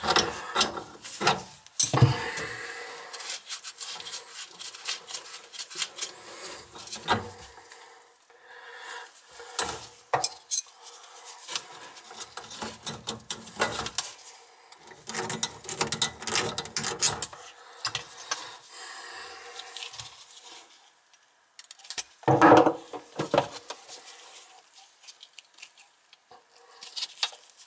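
Wrench working on an old chrome compression shutoff valve under a sink: metal clicks, scrapes and rubbing as the valve stem is loosened and unscrewed so its worn washer can be replaced. There is a louder clatter late on.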